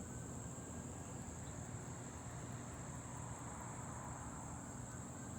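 Insects trilling steadily in one continuous high tone, over a faint low background rumble.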